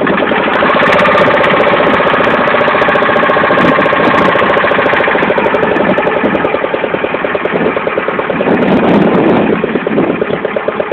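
A motorboat's engine running steadily and close, with a fast, even pulse.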